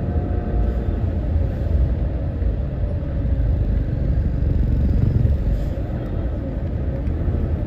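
Slow city traffic: a steady low rumble of idling and creeping car and motorcycle engines, with motorcycles pulling past close by and a slight swell about five seconds in.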